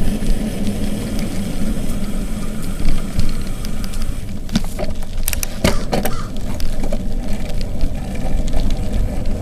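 Steady low rumble of wind and tyre noise on the microphone of a camera carried on a moving bicycle, with a few sharp knocks and rattles about halfway through.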